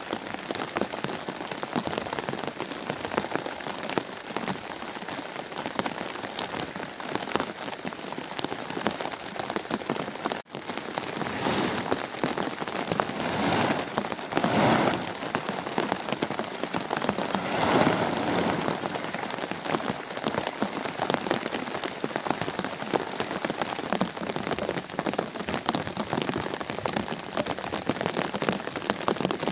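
Continuous rain falling: a dense, even hiss of drops. It cuts out for an instant about ten seconds in and swells louder a few times after that.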